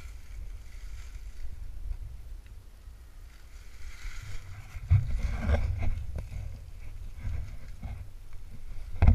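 Low rumble of wind and handling noise on a GoPro camera's microphone as it moves with a climber, with a few knocks and scrapes about five seconds in.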